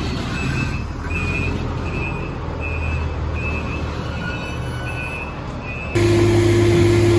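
A heavy vehicle's reversing alarm beeping in an even, steady rhythm over a low diesel engine rumble. About six seconds in, it cuts to a louder, steady engine hum.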